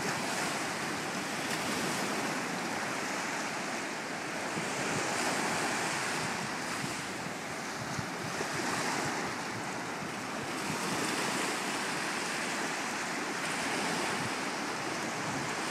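Ocean surf washing in and out over shallow water, the noise swelling and easing every few seconds as waves break.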